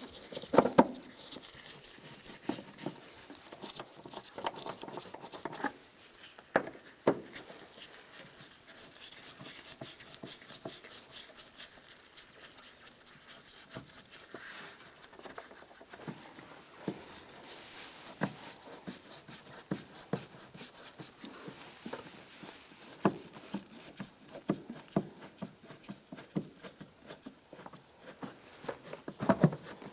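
Phillips screwdriver loosening the screws on a plastic air filter box cover: a long run of small, irregular clicks and scrapes, with a few sharper clicks now and then.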